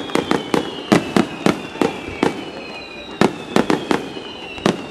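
Fireworks display: aerial shells bursting overhead in a rapid, irregular run of sharp bangs, about fifteen in all, with a short lull about halfway through. Faint high whistling tones glide slowly down behind the bangs.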